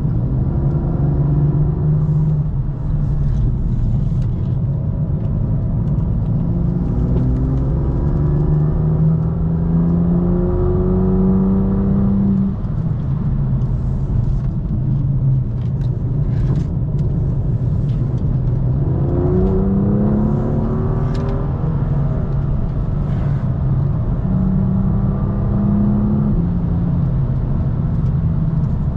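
BMW M2's turbocharged straight-six heard from inside the car, pulling up through the revs in long rising sweeps. It drops back about twelve seconds in, then climbs again twice near the end, over constant low road and tyre rumble.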